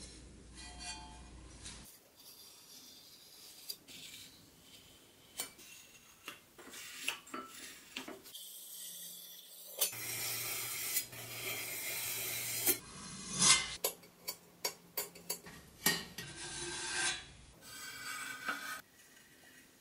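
Hand work on small sheet-steel toy parts: stretches of scraping and rubbing on metal, broken by a run of sharp metallic clicks and taps, with the loudest clicks a little after halfway.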